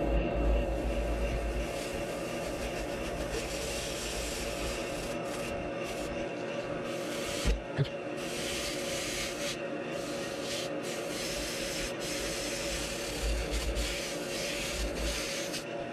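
Sandpaper rubbing against a pink foam blank turning on a Grizzly lathe, a rasping hiss that swells and fades over the lathe motor's steady hum. Two sharp knocks come about halfway through.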